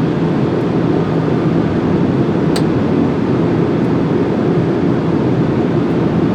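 Steady rush of airflow and engine noise on an Airbus A380 flight deck on final approach, moments before touchdown. A single sharp click sounds about two and a half seconds in.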